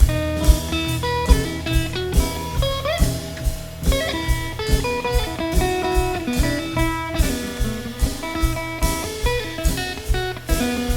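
Guitar trio playing an instrumental tune: a guitar melody with a note bent upward about three seconds in, over low bass notes and a drum kit keeping a steady beat.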